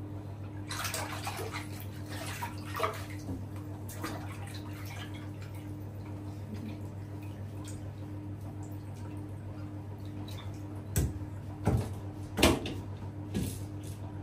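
Water splashing, as in a bathtub: a run of small splashes about a second in, then three or four louder splashes near the end. A steady low hum runs underneath.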